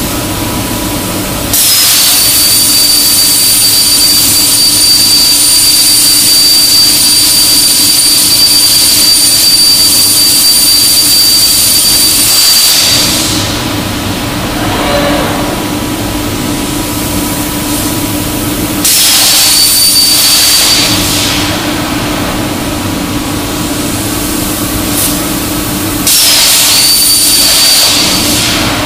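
CNC plasma cutter's Hypertherm torch cutting metal plate: the arc fires three times, one long cut of about eleven seconds and then two short cuts of about two seconds each, each a loud hiss with a steady high whine that starts and stops abruptly. Between the cuts a steady machine hum carries on.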